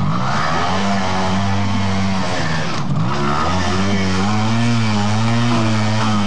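Trials motorcycle engine revving up and down as it is ridden through a muddy section, the pitch rising and falling, with a brief dip about three seconds in.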